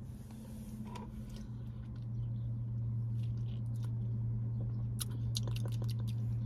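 A person biting into a chicken wrap and chewing, with small wet mouth clicks, thicker near the end. Under it runs a steady low hum that grows louder about two seconds in.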